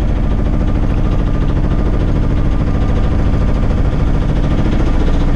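A sailboat's auxiliary engine running steadily under way, holding a constant pitch.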